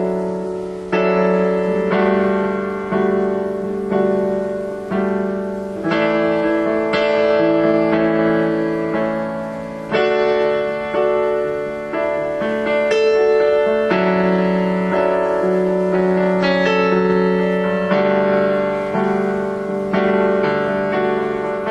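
Solo piano playing slow chords, a new chord struck about once a second and left to ring and fade, as the instrumental introduction before the singing of a worship song begins.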